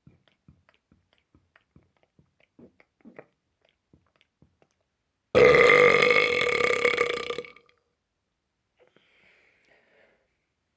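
A person burping: one loud, long belch of about two seconds at a steady pitch, starting about halfway through, after a few seconds of faint mouth clicks.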